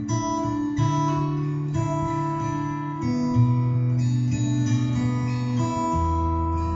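Music played back from a CD: a song led by strummed acoustic guitar, with notes and chords changing about every second.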